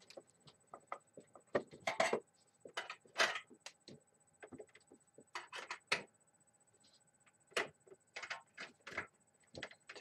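Irregular clicks, knocks and rattles of cables being handled and plugged into a computer, several small sharp sounds a second in scattered clusters.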